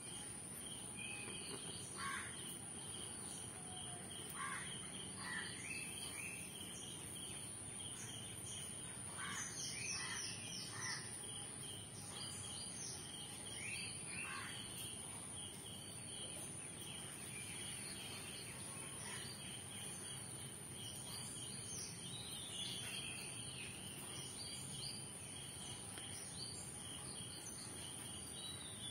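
Faint ambient background: short bird chirps and calls come and go throughout, over a constant high-pitched whine and a low steady rumble.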